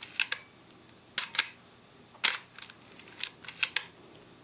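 Minolta XD7 shutter speed dial being turned by hand, clicking through its settings in several quick runs of sharp mechanical clicks.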